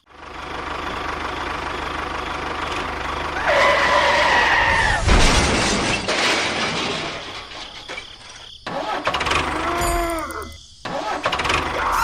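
Small engine running, with a whine that rises and then holds a few seconds in. Near the end the pitch swings up and down, and the sound breaks off abruptly more than once.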